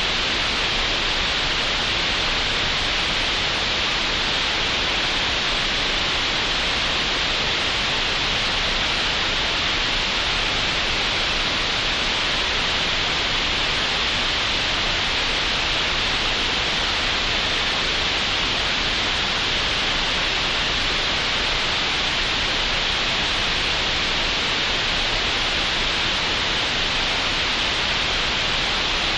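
Computer-generated green noise: a steady, unchanging hiss, fuller in the upper middle range, with no breaks or events.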